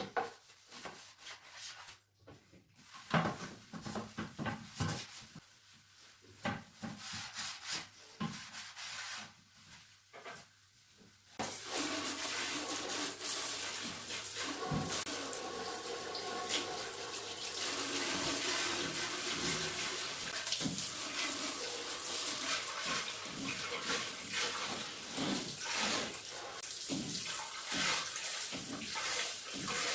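Scattered clicks and knocks of things being handled, then about a third of the way in a tap is turned on and water runs steadily into a sink, with small knocks and splashes over the running water.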